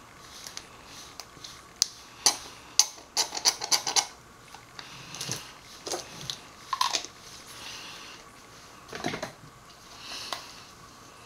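Small oil sample containers and their caps being handled: a run of sharp clicks and clinks, busiest about two to four seconds in, with a few more scattered later.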